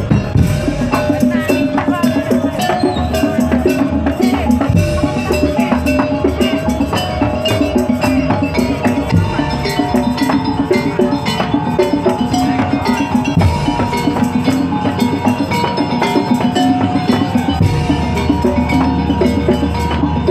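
A Madurese daul (tongtong) ensemble playing: dense, driving drumming and wooden percussion under held melodic notes.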